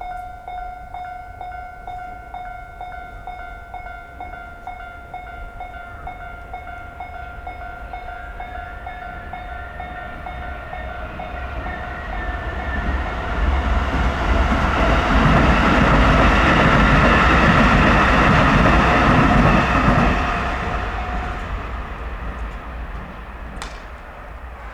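Japanese railway level crossing's electronic alarm ringing a single repeating tone, about two strokes a second. A train passes over the crossing, loudest between about 14 and 20 seconds, with a low rumble; then the alarm stops and the train noise fades.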